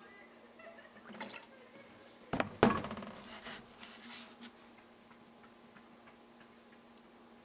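Kitchen utensils clacking and clinking: a metal measuring spoon, bottles and a small ceramic bowl handled on a steel worktop while seasonings are measured. Two sharp clacks come about two and a half seconds in, followed by a short patter of lighter clinks.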